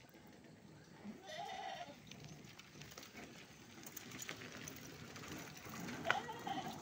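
A young goat kid bleating twice, short calls about a second in and again near the end, with light crackling between them.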